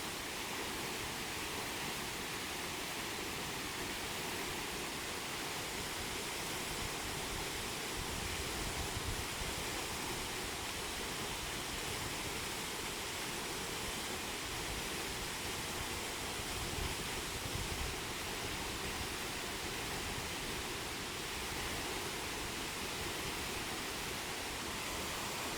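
Waterfall rushing steadily, an even hiss of falling water, with brief low rumbles about a third of the way in and again past halfway.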